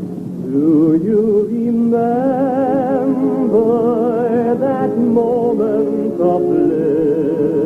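A solo voice with a wide vibrato sings a slow Scottish love song over steady held chords from an accompanying instrument.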